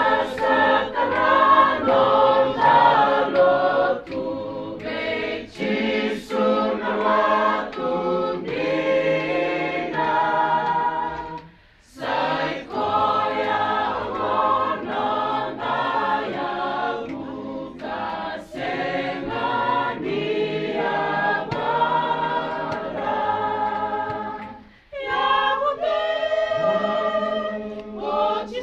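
A choir singing a cappella, with two brief breaks between phrases.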